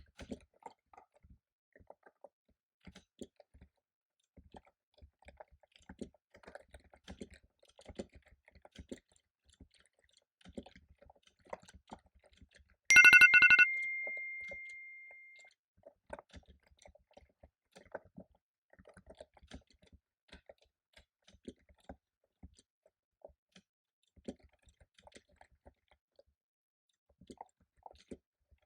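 Computer keyboard typing in scattered soft keystrokes. About thirteen seconds in, a loud electronic timer alarm sounds: a quick trill of chiming tones, then one ringing note that fades over about two seconds. It marks the end of a 25-minute pomodoro study session.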